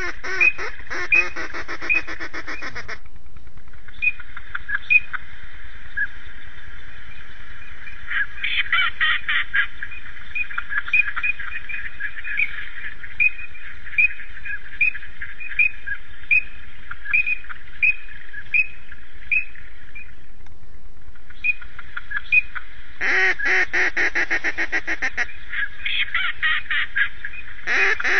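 Ducks calling: bursts of rapid, buzzy quacking at the start and again near the end, with a long steady series of single calls, roughly one every second, in between.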